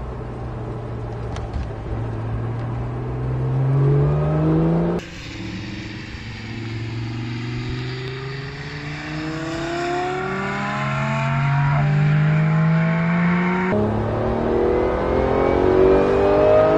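Porsche 911 GT3 (991.1) naturally aspirated 3.8-litre flat-six accelerating hard, its pitch climbing through the gears with quick upshifts. It is heard first from inside the cabin, then from trackside as the car drives past about five seconds in, then from the cabin again near the end.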